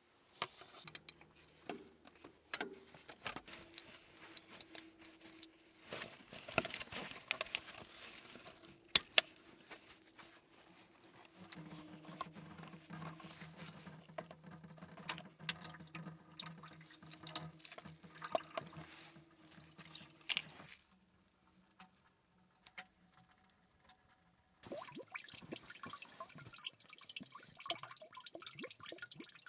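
Coolant pouring and dripping out of the coolant temperature sensor port in the cylinder head of a Case 188D diesel, draining the cooling system into a catch container. The flow breaks off briefly about two-thirds of the way through, then resumes.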